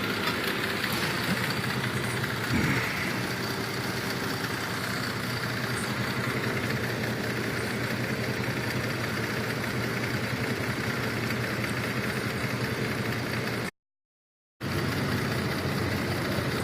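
A 2004 Cadillac SRX's 3.6-litre V6 idling steadily with a misfire, which the owner puts down to an intermittent fuel injector on cylinder 1. The sound cuts out completely for under a second near the end.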